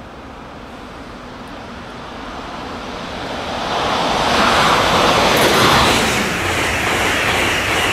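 An Amtrak Acela high-speed electric train approaching and passing at speed. The rush of wheels on rail and air builds from about three seconds in and stays loud as the cars sweep past.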